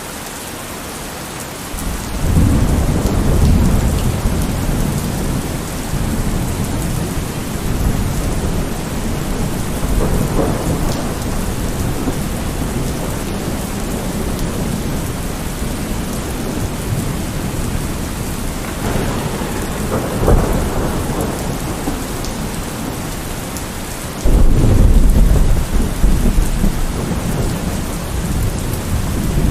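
Steady heavy rain falling, with rolling thunder: low rumbles swell about two seconds in and again twice mid-way, and a louder rumble starts suddenly near the end.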